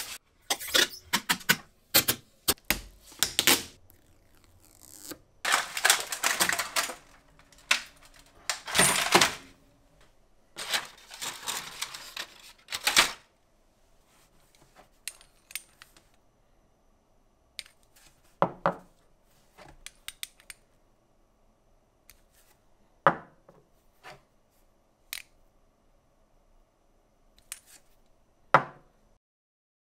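Plastic protective film crackling and rustling in loud bursts as it is peeled off a laser cutter's lid. After that, chrome sockets are set down one at a time on a wooden workbench, giving a sharp metallic clink every few seconds.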